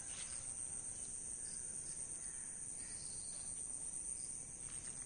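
Insects chirring in a steady, continuous high-pitched drone, with faint outdoor background noise.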